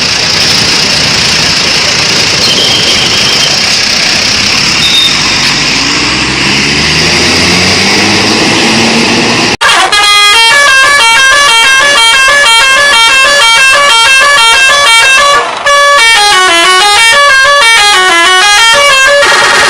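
A loud rushing noise with a faint low run of notes rising under it. Then, after a sudden cut about halfway, a bus telolet horn plays a fast multi-note tune, its notes stepping up and down in zigzag runs, with a brief break near the end.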